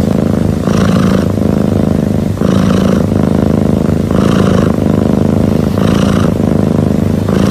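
Sleeping long-haired cat making a loud, steady rumble, with an airy breath sound about every second and a half to two seconds, purring or snoring in its sleep.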